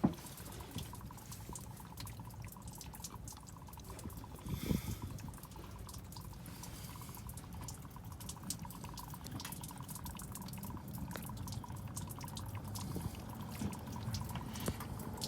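Coolant dripping steadily from a failed water pump, many small drips in quick succession. One louder knock comes about a third of the way in.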